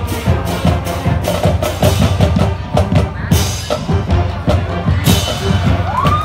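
Marching band playing: brass over a steady beat of drum strokes, with two bright crashes about three and five seconds in.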